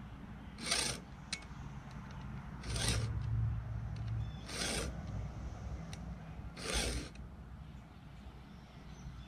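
Four strokes of a STIHL 2-in-1 chainsaw file guide pushed along a saw chain, about two seconds apart. Each stroke is one short rasp as the round file sharpens the cutter tooth and the flat file takes down its depth gauge at the same time.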